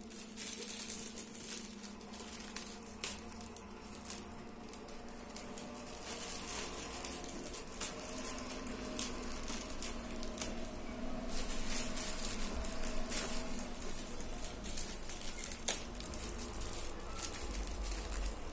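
Rustling and scattered light clicks as a nylon insulated delivery backpack with a foil lining is handled, over a faint steady hum.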